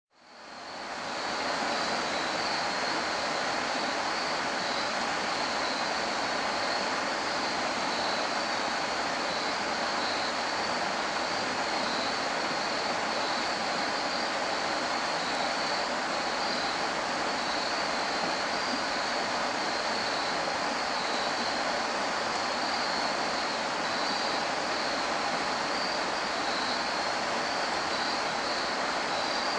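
Shallow stream water running and trickling over stones in a steady rush, fading in over the first second.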